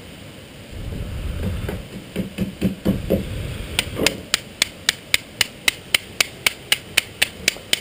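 A low rush of air with a few irregular knocks, then from about halfway a fast, even run of sharp clicks, about four a second.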